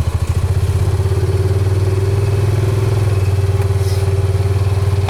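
Small vehicle engine running at a steady idle with an even, rapid pulsing beat and a faint steady hum above it.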